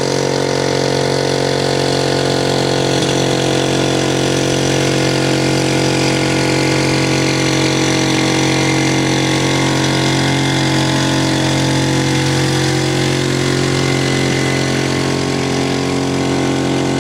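Engine of a TEAM Mini-Max-line ultralight aircraft running steadily at low power while the plane taxis, its pitch holding constant.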